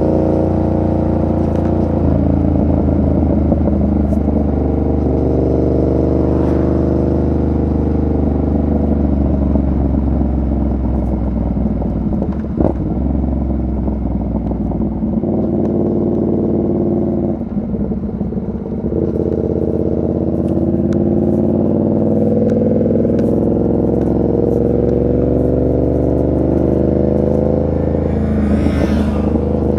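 Yamaha MT-07's 689 cc parallel-twin engine under way, its pitch climbing and falling as the throttle opens and closes through the gears, with a brief lull about two-thirds of the way through.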